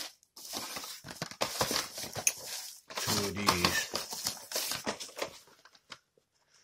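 Rustling and crinkling of bubble wrap and plastic packing as a hand digs through a cardboard shipping box, full of irregular crackles and small taps. A short low vocal sound from the person comes about three seconds in. It dies down near the end.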